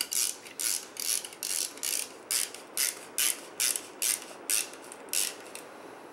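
Ratcheting handle of a pedicle screw inserter clicking on each back-turn as a pedicle screw is driven into a sawbones spine model. There are about two short rattles a second, and they stop shortly before the end.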